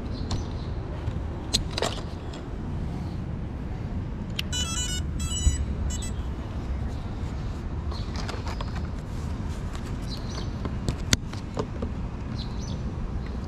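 Electronic start-up beeps from FPV gear: a quick run of stepped tones in two short groups, about four to six seconds in, over a steady low rumble and a few light clicks.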